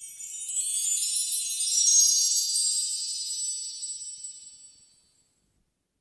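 A 'flickering magic' sparkle sound effect: a high-pitched shimmer of many chime-like tinkling tones that swells for about two seconds, then fades out about five seconds in.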